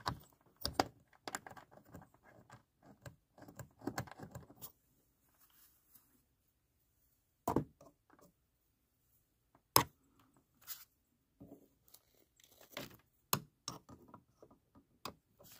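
Faint, scattered clicks, knocks and rustles of hands working an LED floodlight fixture and its mounting bracket while fitting the mounting bolt, with a few sharper clicks in the second half.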